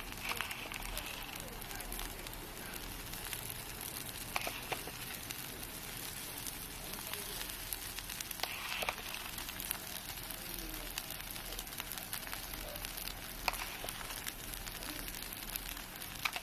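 Takoyaki batter sizzling and crackling in a hot takoyaki pan, a steady hiss broken by a few sharp clicks.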